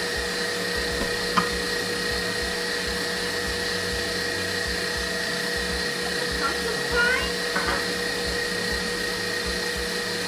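Electric kitchen mixer running steadily, a continuous motor whine with a high steady tone. A sharp click comes about a second and a half in, and a few faint short squeaks come about two-thirds of the way through.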